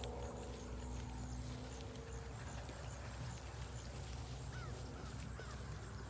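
Sheep grazing close by, tearing and chewing grass in small repeated crunches, over a steady low hum.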